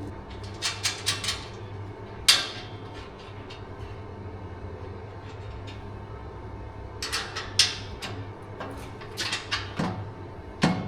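Metal clinks and knocks of a stainless exhaust X-pipe and its bolts being fitted under a truck: a quick run of light clinks about a second in, one sharp knock a little later, and more clusters of clinks near the end, over a steady low hum.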